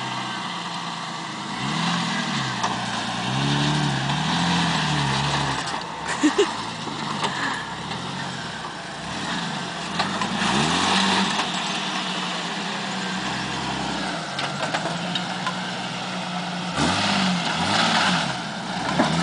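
Lifted Jeep Cherokee XJ's engine revving up and down in short pulls as it crawls over boulders, with two sharp knocks about six seconds in.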